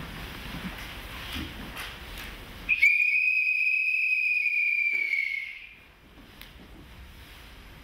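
A single held, whistle-like high tone lasting about three seconds, steady in pitch and dipping slightly as it fades out, over faint room noise with light rustling.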